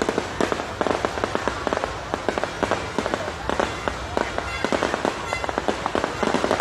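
Fireworks going off, a dense run of sharp cracks and pops in quick, irregular succession.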